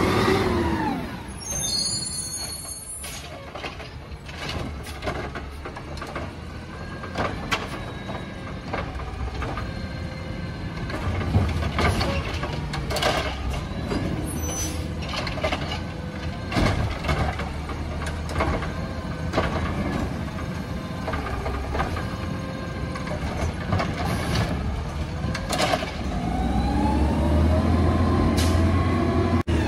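Automated side-loader garbage truck on a Peterbilt chassis: the diesel engine slows at first, then a run of clanks and knocks comes from the lifting arm working, and the engine speeds up again near the end as the truck pulls away.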